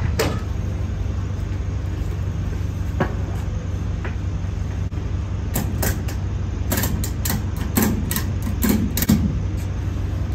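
Load strap being fastened and ratcheted tight across pallets in a trailer: a run of sharp metallic clicks and clacks about halfway through, over a steady low hum.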